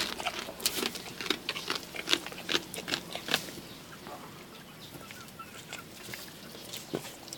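A goat chewing small raw fish: a quick run of crisp crunches and wet clicks of its mouth in the first three seconds or so, growing quieter and sparser after that.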